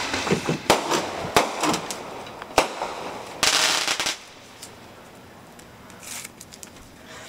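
Fireworks mortar shells going off: a run of sharp cracks in the first three seconds, then a longer noisy burst about three and a half seconds in, then a few faint crackles near the end.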